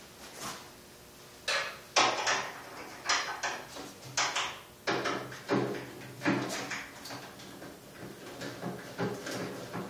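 Hand tools working on a cyclekart's bolted side cover: a string of sharp metallic clicks and knocks, one or two a second, as screws, nuts and bolts are worked loose. The knocks are louder in the first half and grow fainter toward the end.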